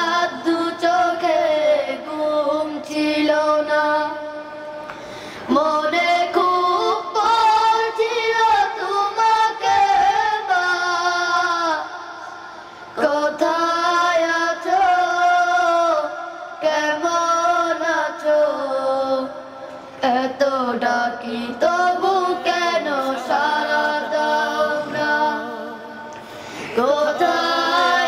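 A young boy singing a Bengali Islamic song about mothers without instruments. He sings long, wavering phrases with short breaks between them.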